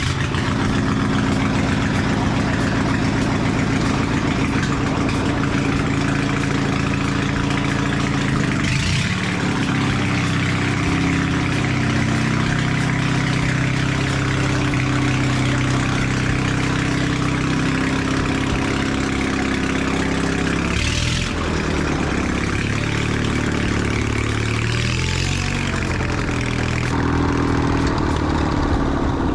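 Riding lawn mower's small engine running under way, its pitch shifting up and down several times as the throttle is worked.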